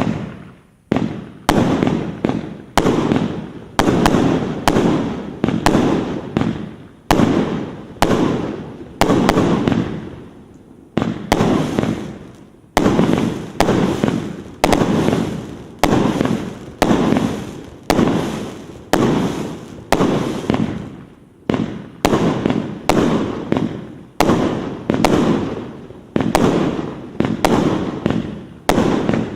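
Multi-shot firework battery 'Volshebny' (GHC01100125) firing shot after shot, about one to two sharp bangs a second, each dying away in a short rumble, with a brief lull about eleven seconds in.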